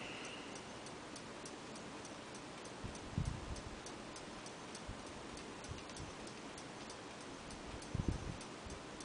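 Faint, even ticking, several ticks a second, with a few low thumps about three seconds in and again near the end.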